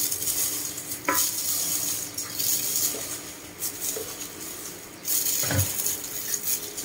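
Kitchen utensils and dishes clinking and scraping, with a rustling hiss throughout. There is a sharp knock about a second in and a heavier thud about five and a half seconds in.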